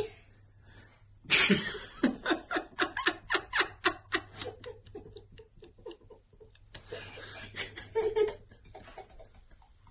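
A young girl laughing: a fast run of giggles starts about a second in and fades away, and a shorter burst of laughter comes near the end.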